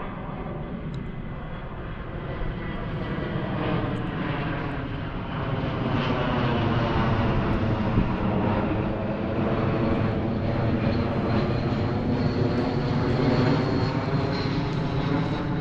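Airplane flying overhead, its engine droning steadily with a stack of pitched tones, growing louder about six seconds in as it passes. The engine sounds modified.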